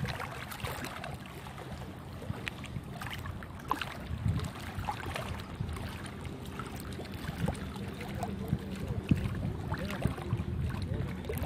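Wind on the microphone and small waves lapping against the rocky shore, with a steady low hum underneath and scattered small splashes and clicks.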